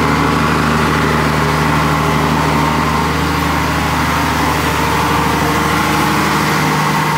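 Stationary passenger train idling at the platform: a steady engine hum with a low drone, heard from inside the carriage.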